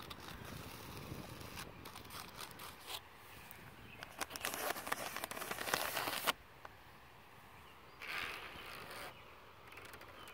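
Fingernails scratching and rubbing on a trampoline: light crackly scratches at first, then a louder stretch of dense scratching on the blue padded frame cover from about four seconds in that stops abruptly, and a shorter patch of scratching near the end.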